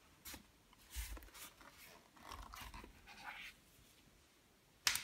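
Handling noise: a small click, then about two and a half seconds of rustling with a few soft knocks, and one sharp click near the end.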